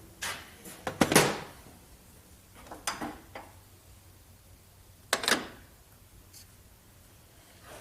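Metal parts being handled and set down, making several sharp clanks with a short ring. The loudest comes about a second in, two smaller ones about three seconds in, and another just after five seconds.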